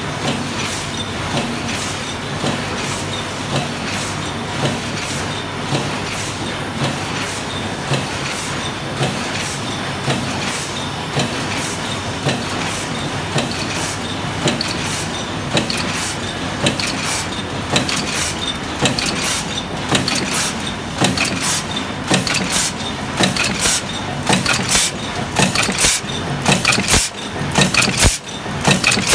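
Press machine running: a steady mechanical noise with many sharp clicks and clanks, which come thicker and louder in the second half.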